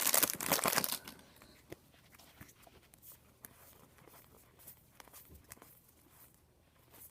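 A baseball card pack's foil wrapper crinkles loudly as it is torn open, stopping about a second in. Then come faint clicks and rustles of the cards being handled.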